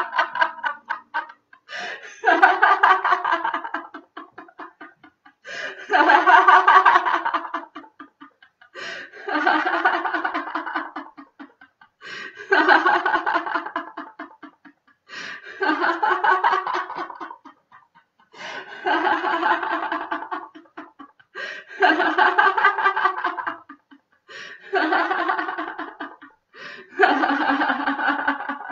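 A woman laughing out loud in about nine bouts of rapid ha-ha-ha, one every three seconds or so, with short breaths in between. This is deliberate laughter-yoga laughter.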